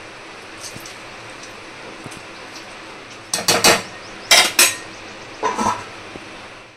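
Stainless-steel cookware clinking and clattering: a metal ladle and a steel lid knocking against a wide steel pan in three short bunches from about halfway in, as the pan of pulao is covered to cook.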